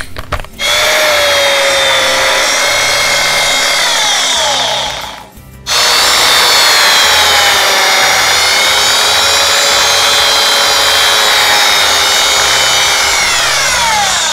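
Small handheld electric mini drill whining at high speed as its thin bit drills out the rubber strain-relief tail of a laptop power plug. It runs twice: once for about four seconds, then again for about eight. Each run ends with the whine falling in pitch as the motor spins down.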